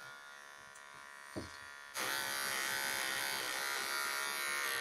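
Cordless pet grooming clippers buzzing steadily as they shave the fur from between a Bernese mountain dog's paw pads. The buzz comes in suddenly about two seconds in.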